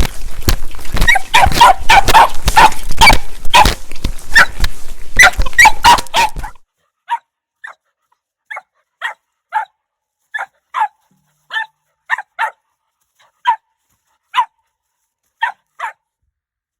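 Dog barking repeatedly, loud and dense over a noisy background at first. About six seconds in the background cuts off abruptly, leaving single barks about one a second.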